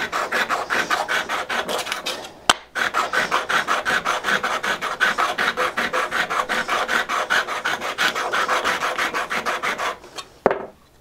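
Steel card scraper's edge being honed on a sharpening stone, rubbed back and forth while held against a flat wooden block: a fast, even scraping of about five strokes a second. A sharp click comes about two and a half seconds in, during a short pause, and the strokes stop with a knock near the end.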